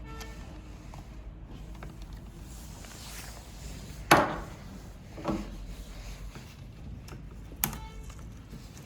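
Three separate sharp knocks or clicks of hard objects being handled, the loudest about four seconds in, over a low steady hum.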